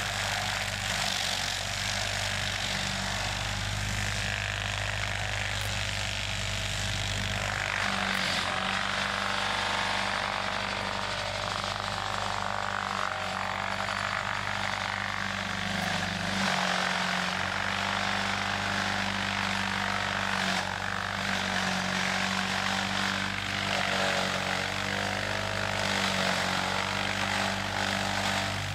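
Tractor engine under load driving a Loftness Timber Ax Extreme PTO brush shredder, its rotor mulching standing brush: a steady engine drone under a rushing, crackling noise of material being shredded, the pitch and load shifting a little as it pushes into the brush.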